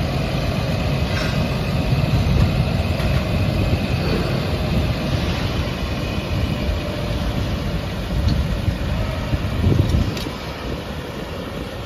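Farm tractor's diesel engine running steadily while its rear-mounted boom sprayer is spraying, with a steady hiss over the engine rumble. The rumble swells briefly about ten seconds in.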